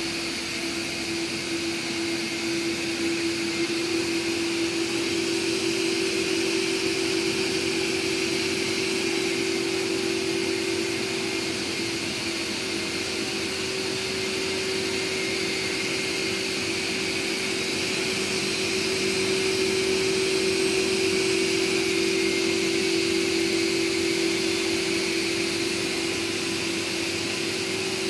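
Several Samsung POWERbot R9350 robot vacuums running on carpet: a steady motor hum and suction hiss, a little louder past the middle as one comes close.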